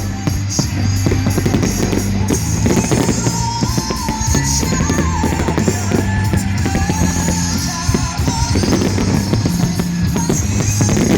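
Loud rock music with a drum kit and a singing voice, with sharp bangs of fireworks going off through it.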